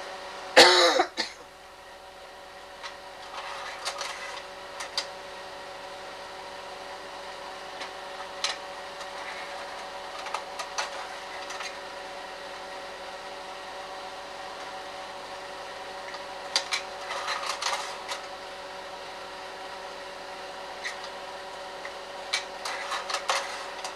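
Steady mechanical hum of a running slide projector, with a short loud noise about half a second in and scattered faint clicks and rustles.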